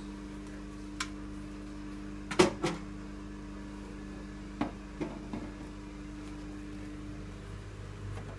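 Freezer running with a steady electrical hum, with several short knocks and clunks as things are set inside it; the loudest is a double clunk about two and a half seconds in.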